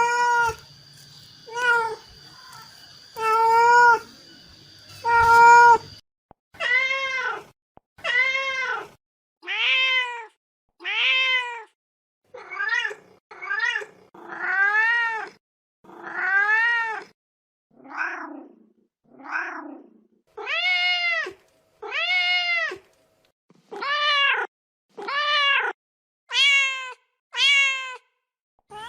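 Mother cat meowing over and over to call her kittens: a string of meows, each rising then falling in pitch, roughly one a second, with two lower, shorter calls about two-thirds of the way through. A faint steady high-pitched tone sits behind the first few calls.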